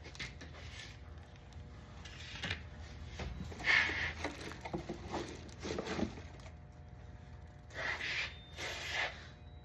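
Unboxing handling noise: the fog machine's parts and packaging rubbed, scraped and shifted around, in irregular short bursts with a few brief rustles.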